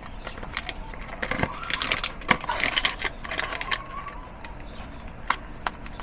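Hands handling and opening a small cardboard box with a plastic disposable vape inside: rustling and scraping of the cardboard with scattered sharp clicks and taps, two of them near the end.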